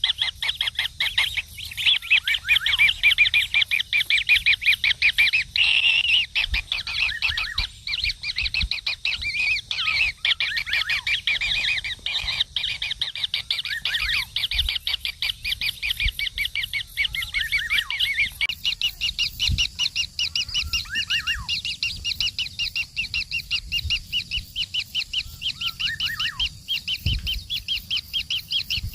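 Kingfisher nestlings calling in a fast, unbroken chatter of short, high, repeated notes, with a few short falling notes in the second half.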